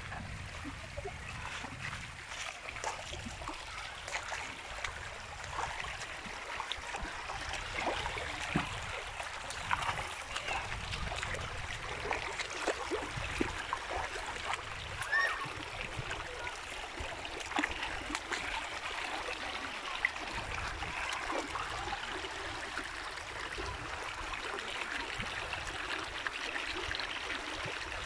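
A shallow stream running and trickling over rocks, with small splashes from footsteps wading through the water.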